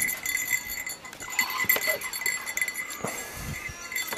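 Catfish clonk (Wallerholz) struck into the water beside the boat, a few hollow, separate plopping strokes made to draw wels catfish to the bait.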